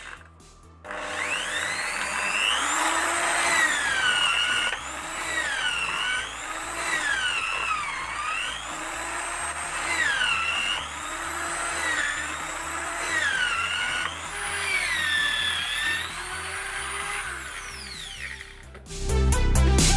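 Corded electric drill mounted in a homemade drill press stand, boring a row of holes in a block of wood. The motor's pitch sags several times as the bit bites into the wood and rises again as the bit is lifted. The drill starts about a second in and stops shortly before the end.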